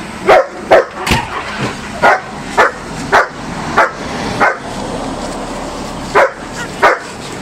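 Dachshund yelping: a quick run of short, high yips about every half second, a pause about five seconds in, then two more near the end.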